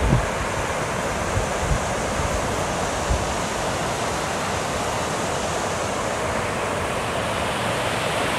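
River water rushing steadily over a weir, running high and fast after recent rain. A few low wind bumps hit the microphone in the first three seconds.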